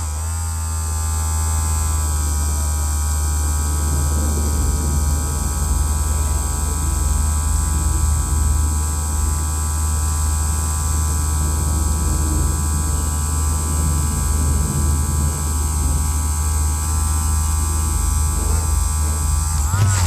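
Handheld electric vibration machine running continuously with a steady low buzzing hum, held still in one place.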